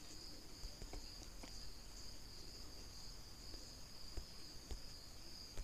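Quiet pause in room tone: a faint, steady high-pitched whine, with a few faint ticks.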